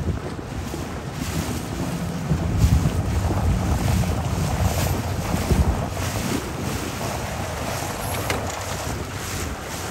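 Wind noise buffeting the microphone over the splash and wash of choppy water around a small two-person sailing dinghy's hull.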